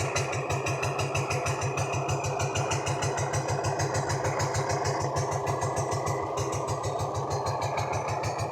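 G200 single-cylinder four-stroke engine of a home-built motorcycle idling steadily with an even, regular beat.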